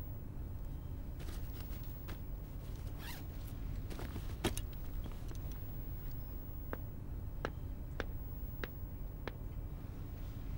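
A zipper on a bag being opened, with scraping and rustling strokes in the first half, the sharpest near the middle. Then come five short, sharp ticks a little over half a second apart, over a low steady hum.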